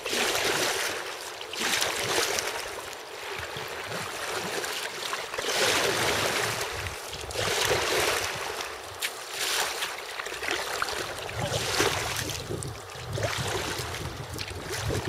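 Rushing noise of wind and water, swelling and fading every second or two, as heard out on the water.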